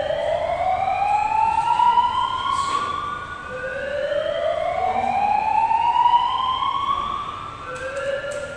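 Siren wailing: a tone that rises slowly over about three and a half seconds, drops back and rises again, repeating steadily.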